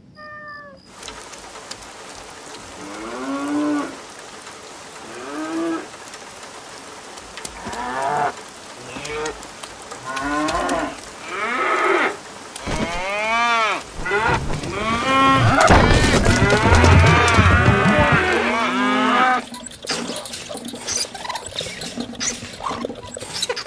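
Animal calls, each rising and then falling in pitch, repeated every second or two and building into a loud overlapping chorus that cuts off abruptly about nineteen seconds in, followed by scattered clicks and softer sounds.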